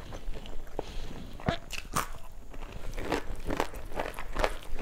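Close-miked chewing and mouth sounds, an irregular run of short crunches and wet clicks from eating rice mixed with fried fish by hand, with fingers working the food on a steel plate.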